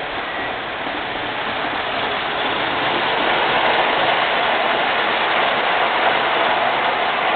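MTH O-gauge R40 'slant' subway model train rolling past on three-rail track: a steady rush of wheels and motors that swells about two seconds in as the cars go by.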